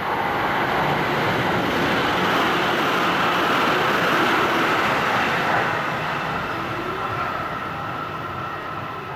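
Tsukuba Express electric train passing through the station at speed without stopping: a rush of wheel and rail noise that swells to its loudest a few seconds in, then fades as the train runs away down the line.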